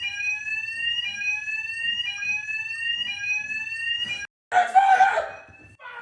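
Fire alarm sounding a repeating rising sweep tone, about one sweep a second, that cuts off abruptly about four seconds in. A short loud noisy burst follows half a second later.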